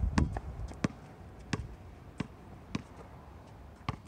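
A basketball being dribbled on an outdoor hard court: about six bounces, roughly one and a half a second, with a longer pause before the last one near the end.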